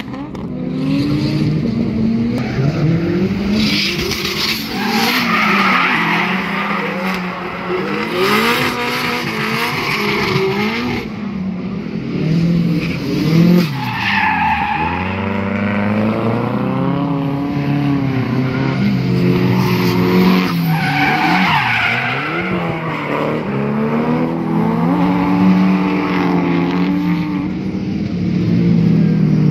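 Drift cars sliding through a hairpin, their engines revving up and down over and over while the tyres squeal and skid.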